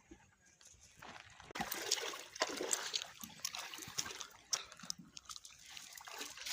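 Water splashing and sloshing, with scattered sharp splashes. It starts about a second in and eases off after about five seconds.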